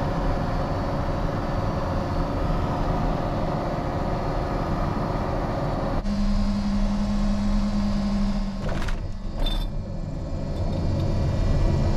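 A light single-engine propeller airplane heard from inside the cockpit: engine and propeller droning steadily in flight. After a sudden cut halfway through, the engine runs at low power with a steady hum as the plane rolls along the runway.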